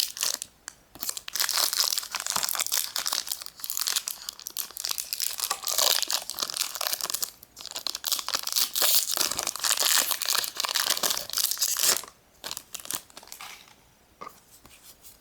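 Foil booster-pack wrapper being torn open and crinkled by hand: dense, rapid crinkling and tearing that stops about twelve seconds in, leaving only faint rustles.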